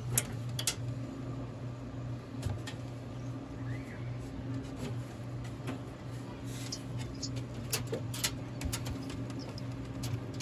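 Scattered small clicks and rattles of plastic wire-harness connectors being unplugged and cables being handled inside a vending machine, over a steady low hum.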